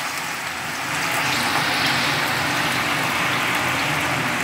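Coarsely grated raw potato shreds sizzling and bubbling hard in deep hot oil in a kadai, as the water in the fresh shreds boils off. A steady sizzle that swells about a second in and then holds.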